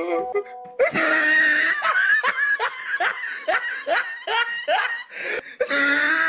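Loud, rhythmic laughter with music, about three laughs a second, after a brief steady tone at the very start.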